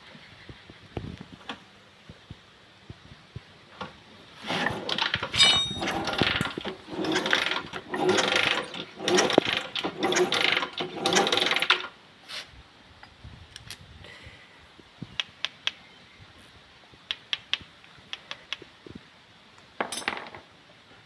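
Hand-tool work on motorcycle engine parts: a run of loud scraping strokes lasting about seven seconds, followed by scattered light metallic clicks and taps.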